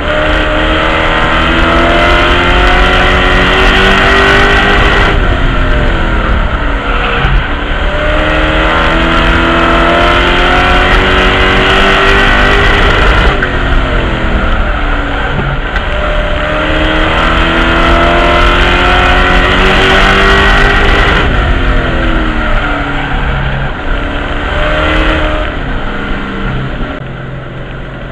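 V8 engine of a NASCAR-style race truck heard from inside the cockpit. It climbs in pitch as it accelerates down each straight, then drops as the driver lifts for the turns, about every eight seconds lap after lap. Near the end it eases off to a quieter, lower run.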